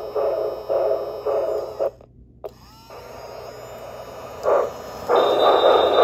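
Model steam locomotive's chuffing sound, about two chuffs a second, cutting out briefly about two seconds in. From about five seconds in, the train's wheels rumble and clatter along the tinplate track, louder, with a thin high ring.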